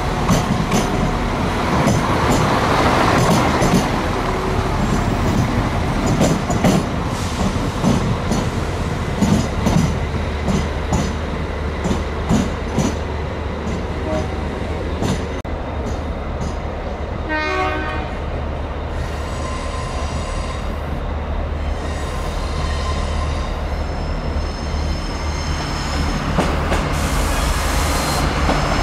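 Irish Rail train at a station platform: wheels clicking over rail joints, then a steady low engine hum, with a brief horn-like tone about two-thirds of the way in.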